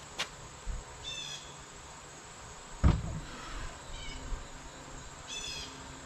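Wooden coffee table parts being loaded into a pickup truck bed: one sharp, loud knock about three seconds in, with a couple of lighter knocks before it. Short high chirps come three times in the background.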